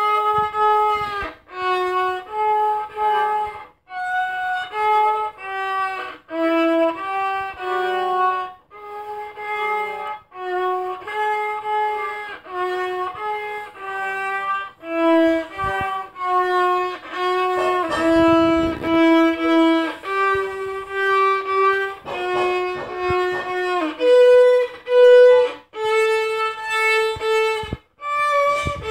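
Solo violin playing a melody one note at a time, with short pauses between phrases.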